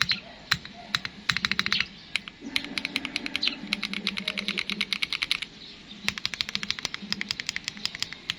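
Typing on a Luminkey 65 mechanical keyboard with HMX Xinhai switches and red Samurai keycaps: fast runs of clacky keystrokes broken by short pauses.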